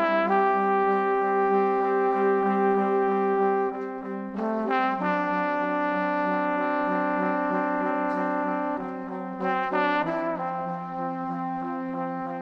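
Background music of long held, brass-like chords, changing about every four to five seconds.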